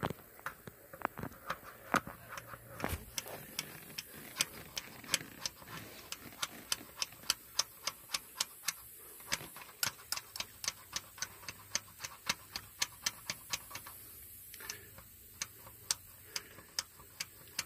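Hand fuel primer pump on a Komatsu PC220LC excavator being worked by hand, its plunger clicking at about three strokes a second, steady and even: priming the fuel system to purge air from the filter.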